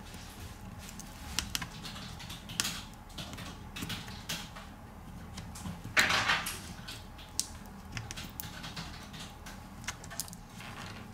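Scattered small clicks and taps of repair tools on the internal parts of a BlackBerry Priv being taken apart, with one louder scrape about six seconds in.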